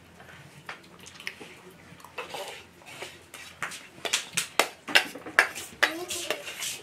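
Cutlery and dishes clattering: a run of sharp clinks, sparse at first, then louder and busier in the second half.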